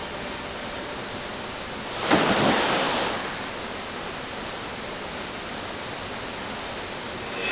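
Steady rushing of a waterfall pouring into a pool. About two seconds in, a louder burst of noise lasting about a second rises over it.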